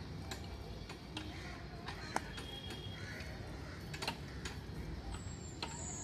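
Irregular sharp clicks and ticks from the metal pivots and handles of outdoor gym machines being worked, over a steady low background rumble. A high, falling whistle comes near the end.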